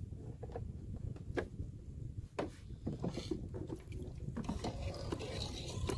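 Small waves lapping against a plastic kayak hull, with a low wind rumble and a few light knocks and clicks as gear on the kayak is handled.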